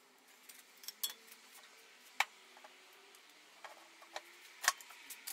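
Light metallic clicks and taps from small metal parts of a swivel caster base being handled and fitted together on a workbench. The clicks are scattered and irregular, with a few sharper clinks, the loudest about two seconds in and again near the end.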